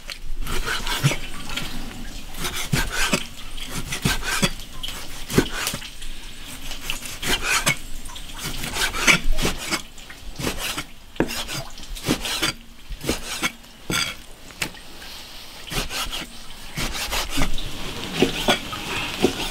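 Chinese cleaver slicing raw beef tripe on a thick wooden chopping block: a steady run of irregular knocks as the blade strikes the wood, with the scrape of the cut between them.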